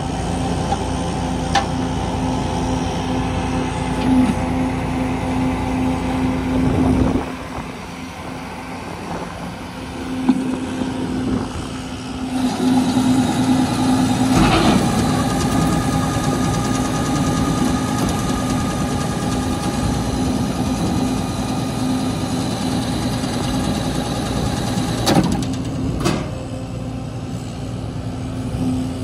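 Gunite truck running, its engine and hydraulic drive giving a steady drone with a held tone while the rear conveyor chute is worked from the controls. The drone drops off about seven seconds in and picks back up around twelve seconds. A few sharp knocks come about four seconds in, midway, and twice near the end.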